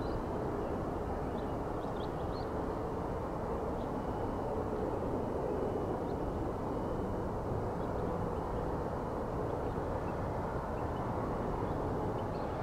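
Steady low rumble of a twin-engine jet airliner's engines climbing away after take-off, heard from far off.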